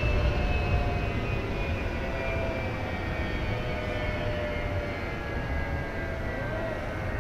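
Jet aircraft engine noise: a steady low rumble with several high whining tones that drift slowly down in pitch, the whole sound gradually easing off.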